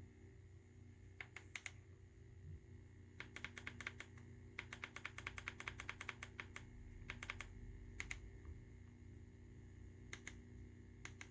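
Faint keystroke clicks of a laptop keyboard being typed on, in short runs with a longer quick run through the middle, over a low steady hum.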